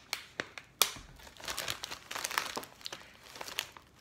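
Thin plastic being handled, crinkling and crackling: a few sharp clicks in the first second, then a denser rustle in the middle and a few more clicks near the end.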